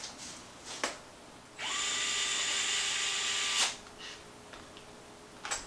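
DeWalt 8-volt gyroscopic cordless screwdriver spinning up and running steadily for about two seconds as it drives in the tie rod screw, then stopping. A few light clicks of small parts being handled come before and after.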